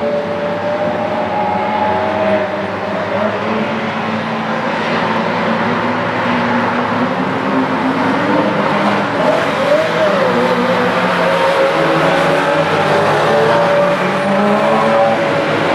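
Engines of several Porsche sports cars on a race track running at once, their pitches rising and falling as they rev and pass. One engine's pitch climbs and dips sharply about ten seconds in.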